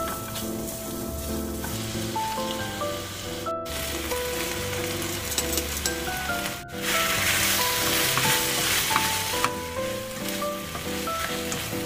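Onions, green chilies and octopus sizzling in a frying pan as they are stir-fried over high heat with a wooden spatula. The sizzle drops out briefly twice and is louder from about seven seconds in. Background music of single held notes plays over it.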